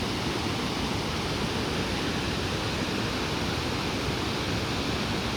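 Torc Waterfall's water falling and splashing: a steady, even rush.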